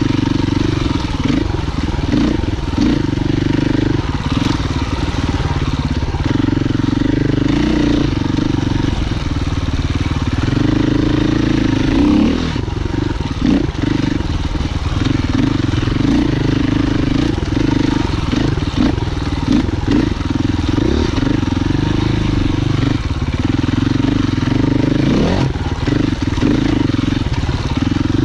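Husqvarna FE 501's single-cylinder four-stroke enduro engine being ridden, its note rising and falling with the throttle and dropping briefly many times as the rider comes on and off the gas.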